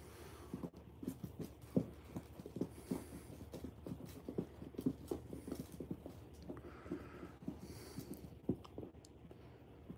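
Rapid, irregular soft thumps and scuffs, with a few louder knocks about two, five and eight and a half seconds in.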